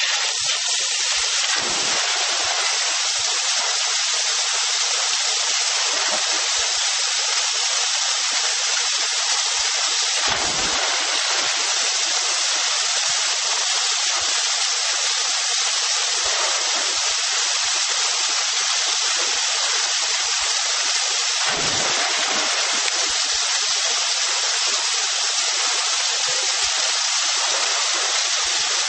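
Steady rush of water pouring down a rock pool waterslide and splashing into the pool, with a couple of brief low thumps.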